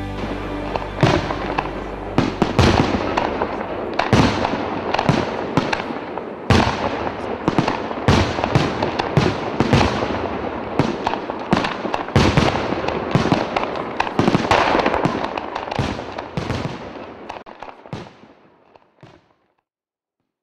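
Fireworks going off: a rapid, irregular run of bangs over continuous crackling, dying away near the end.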